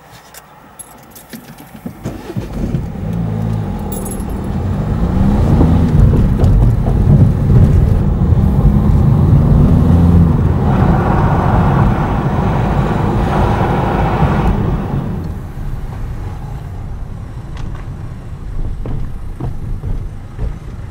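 A motor vehicle passing close by. Its engine builds up from about two seconds in, is loudest through the middle with its pitch rising and falling, then eases off. A few light clicks and rattles come at the start.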